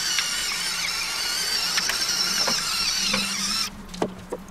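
Electric pepper mill's small motor whining steadily as it grinds peppercorns, then cutting off suddenly near the end, followed by a couple of light knocks.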